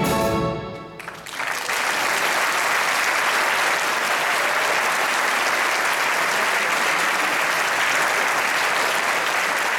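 An orchestra's final chord fades out within the first second, then audience applause starts and continues steadily.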